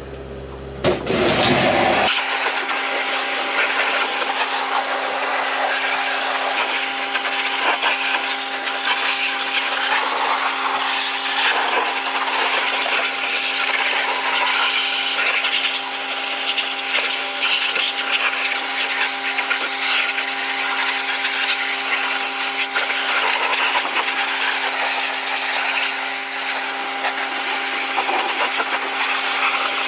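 Pressure washer jet spraying water onto a tractor's bodywork and tyres: a loud, steady hiss that starts suddenly about two seconds in, over a steady hum from the washer.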